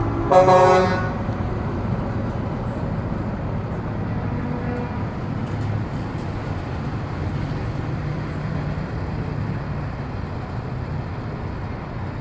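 A vehicle horn sounds one loud blast of under a second, just after the start, over the steady low rumble of convoy trucks and traffic driving past.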